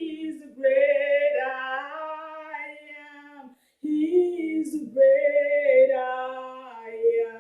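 A woman singing a gospel worship song unaccompanied, in two long drawn-out phrases of sliding, held notes with a short breath between them.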